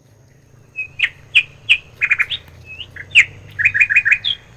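A bird chirping: a run of short, sharp, loud notes, some coming in quick groups of three to five.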